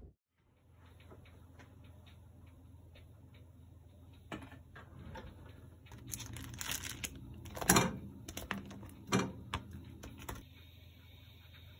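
Kitchen handling noises as raw cubed beef is tipped from a plastic container into a pot with oil: light clicks at first, then several louder rustles and knocks, the loudest about two-thirds of the way through. A steady low hum runs underneath.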